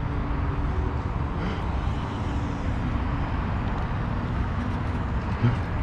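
Wind buffeting the microphone and tyre rumble from an electric unicycle ridden fast, a steady low rush.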